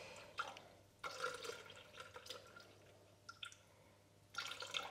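Milk being poured slowly into a Thermomix mixing bowl: faint trickling and splashing that comes and goes.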